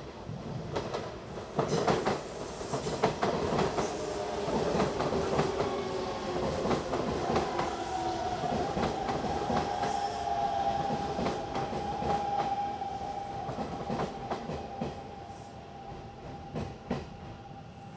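Electric commuter train running slowly past at close range, its wheels clicking repeatedly over rail joints and points, with a steady high whine through the middle of the pass. The clicks thin out and the sound fades as the last cars clear.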